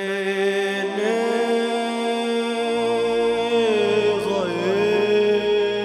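A male singer holding long, slow notes with wavering melismatic turns, the wordless opening alap of a Punjabi folk song, over a steady harmonium drone. A deep low keyboard note comes in about three seconds in.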